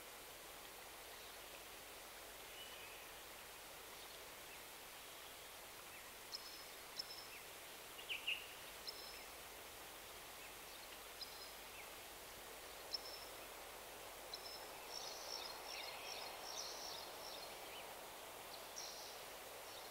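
Soft scratching of a flat synthetic brush scrubbing fabric paint into a canvas tote bag, over a quiet steady hiss. From about six seconds in, short high bird chirps come now and then, thickest a little after the middle.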